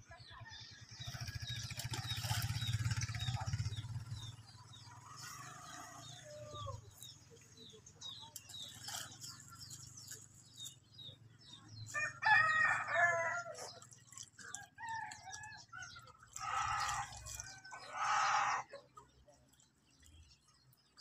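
A rooster crowing a few times in the second half, with small birds chirping.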